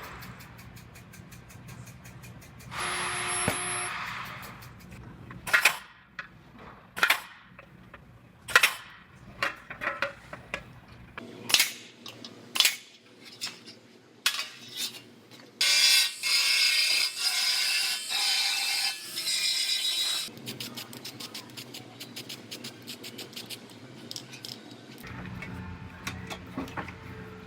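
Metal tools clicking and knocking on a vehicle's steel frame, a dozen or so sharp separate strikes. Then about four seconds of harsh, crackling hiss that starts and stops abruptly, over low background music.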